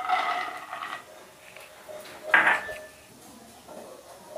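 Raw peanuts poured from a glass bowl into a kadhai, clattering onto the metal pan, which rings for about a second; a second short rattle with a brief ring comes about two seconds in.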